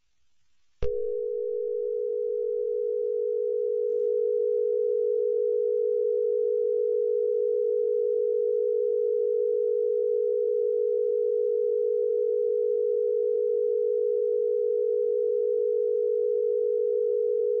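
A single steady alarm tone, the attention signal of a mock Emergency Alert System warning. It starts about a second in and is held unbroken for about 17 seconds, then cuts off suddenly. It is one mid-pitched tone, not the usual two-tone chord of the real alert.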